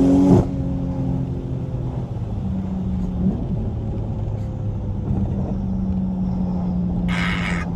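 A car engine runs at a steady, even drone after a louder rev falls away at the start. A short hiss comes near the end.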